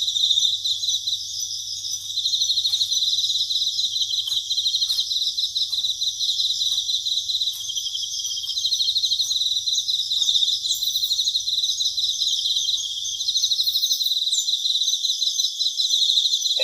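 Autumn insects, crickets, chirping in a steady chorus of fast, high-pitched pulsed trills.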